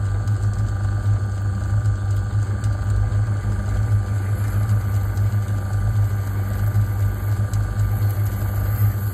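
Small metalworking lathe running steadily with a low hum, while a centre drill held in a drill chuck is fed into the end of the spinning round bar.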